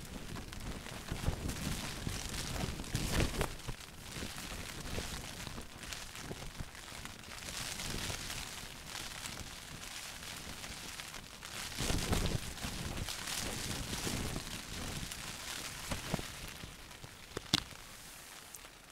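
Wind and rain on a tent, with gusts rumbling on the microphone around the start and again about twelve seconds in, and one sharp click near the end.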